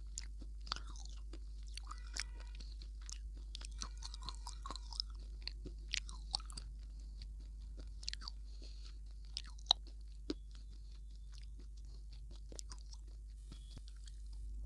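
Close-miked chewing: a mouthful being chewed with scattered crisp crunches and wet mouth clicks, growing sparse in the last few seconds.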